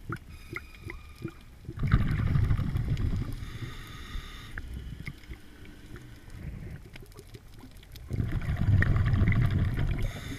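A scuba diver breathing through a regulator underwater: two long bursts of bubbling, rumbling exhalation, the first about two seconds in and the second about eight seconds in, with quieter spells and faint scattered clicks between them.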